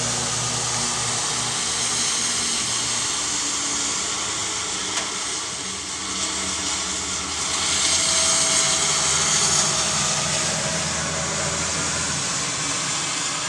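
Car driving on a rain-wet highway: steady tyre hiss and road rumble, swelling louder for a few seconds past the middle.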